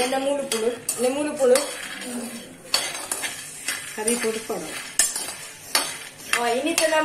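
A metal spoon stirring and scraping peanuts being roasted in an aluminium kadai: the nuts shuffle and rattle against the pan, with sharp scrapes and clinks of the spoon on the metal.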